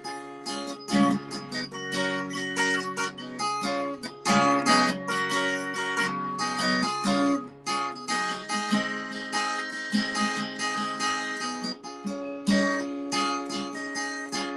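Acoustic guitar being strummed, playing chords that change every second or so, with no singing.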